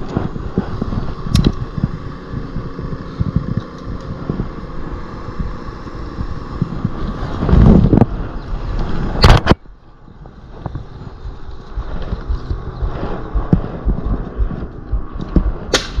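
Wind rumble and handling noise on a climber-worn camera, with many small knocks. About eight to nine seconds in the camera rubs and knocks loudly against willow bark, then the sound drops suddenly quieter before the rumble builds again.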